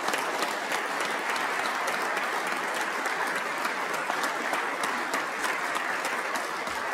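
A chamber full of legislators applauding: many hands clapping together in steady applause.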